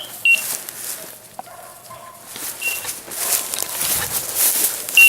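Bird dog's beeper collar in point mode, giving a short high beep about every two and a half seconds while the dog holds point. Footsteps rustle through brushy cover underneath.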